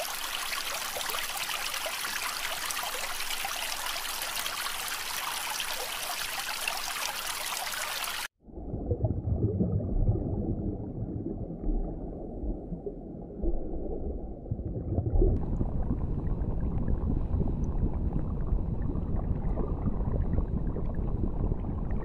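Aquarium water: a bright hiss of bubbling, trickling water that cuts off suddenly about eight seconds in, then a deeper, muffled gurgling of water.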